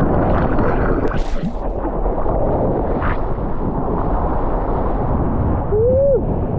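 Surf and wind rushing over a GoPro Hero 9's microphone in the water: a loud, steady rumble. A short rising-then-falling tone sounds near the end.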